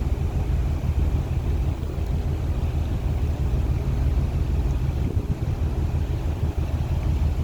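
Steady low rumble of a ferry under way at sea, with wind buffeting the microphone and a faint steady whine from the ship's machinery.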